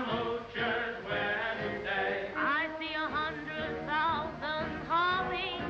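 Swing-band music from a cartoon soundtrack with a wordless vocal line that wavers and slides in pitch from about halfway through.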